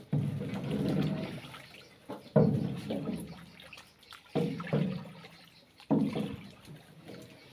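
Paddle plunging into river water beside a wooden boat: four splashing strokes about one and a half to two seconds apart, each trailing off in sloshing.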